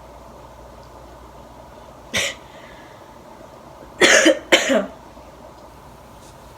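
A person coughing: one short cough about two seconds in, then two louder coughs back to back about four seconds in.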